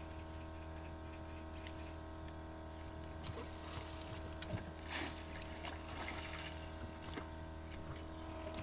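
Small boat's motor running steadily at low speed, a constant hum, with a few faint light clicks.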